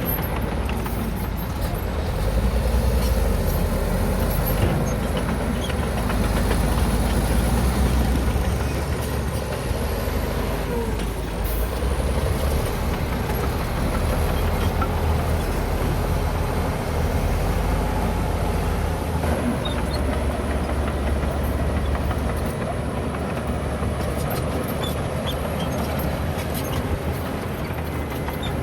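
Diesel engine of heavy earthmoving machinery running, its deep rumble swelling and easing over several seconds.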